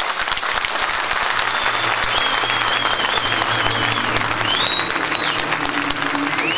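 Audience applauding steadily. About two seconds in, a high, wavering melodic line comes in over the clapping.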